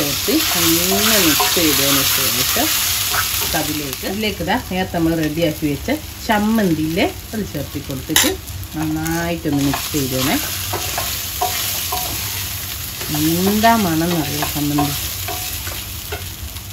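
Wooden spatula stirring steamed rice dumplings in a sizzling steel pan of tempered mustard seeds and curry leaves, with many short rising-and-falling squeaks and a single sharp knock about halfway through.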